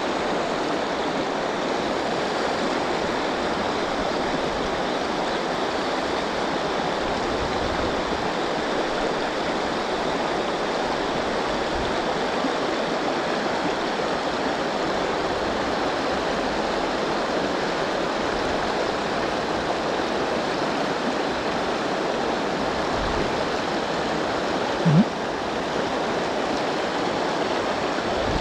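River rapids rushing steadily, heard close up. Near the end there is one brief, loud thump.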